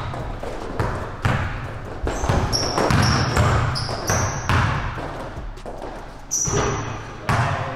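Basketball being dribbled hard on an indoor court, a bounce roughly every half second to second, mixed with several short high-pitched sneaker squeaks on the floor.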